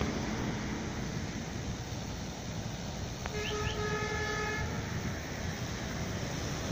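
Steady rushing noise from wind on the microphone, with a distant horn sounding once for about a second just past the middle.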